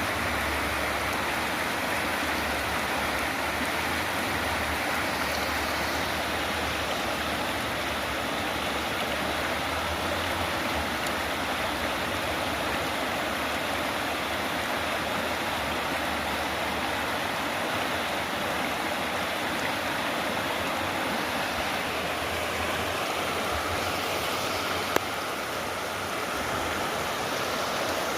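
Flowing stream water rushing steadily. A single brief click sounds near the end.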